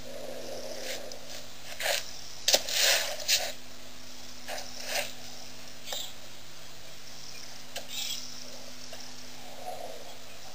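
An African elephant right at the microphone making a series of short, sudden noises, the loudest cluster about two and a half to three and a half seconds in, with fainter ones later, over a steady low hum.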